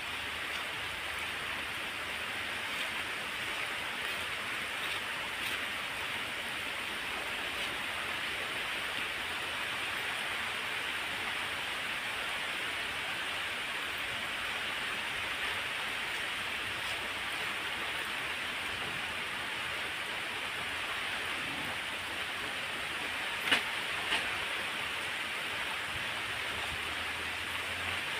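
Heavy rain falling steadily, an even hiss. Two sharp clicks about half a second apart near the end.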